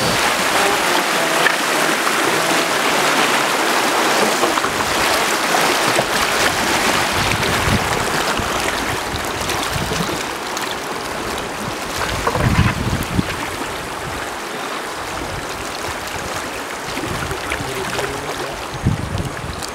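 River water rushing over rocks through shallow rapids, then the steady wash of a shallow river flowing past a bamboo raft as it is poled along, with a few low thumps.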